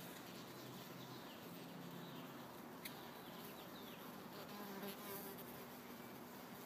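Black bumblebee buzzing faintly in flight, a low wing hum that comes and goes as it moves among the flowers. A single sharp click about three seconds in.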